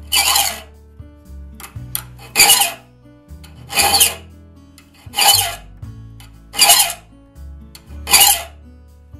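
Flat file rasping across a steel raker tooth of a one-man crosscut saw: six slow, even strokes about a second and a half apart, shaping the raker to a point until the flat on its end is gone. Quiet background music runs underneath.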